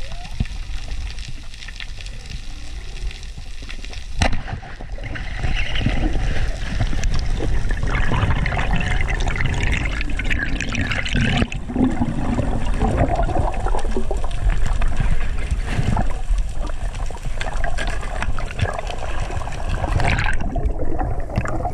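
Underwater sound of a spearfisher on a reef: a steady low rush of water with scattered clicks, and a sharp crack about four seconds in as the speargun fires. After the shot comes a louder stretch of rushing, crackling water noise.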